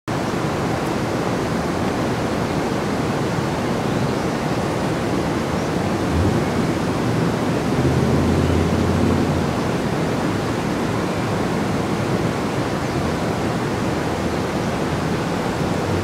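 Water from a fountain waterfall running steadily down a sloped, textured stone wall: a broad, even rush. A low rumble from a passing vehicle swells briefly about eight seconds in.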